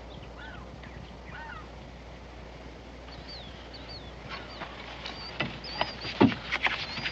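Outdoor background of birds chirping faintly, followed in the second half by a handful of sharp knocks and rustles as goods are handled on a loaded wagon.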